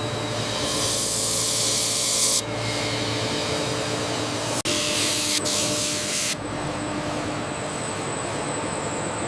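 Two bursts of loud hissing spray, each about two seconds long, over a steady machine hum.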